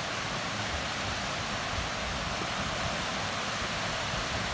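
Waterfall spilling over a mill-pond dam: a steady, even rushing of water, running at a good flow.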